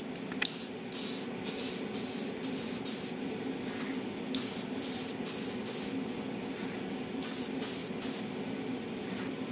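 Spray paint hissing onto plastic model parts in short bursts: about a dozen quick sprays in three groups, over a steady low hum.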